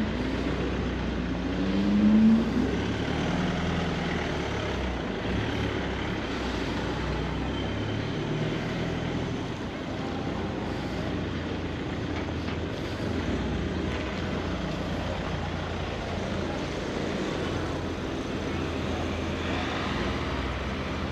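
A car engine close by rising in pitch as it pulls away, loudest about two seconds in, then steady low traffic and street noise.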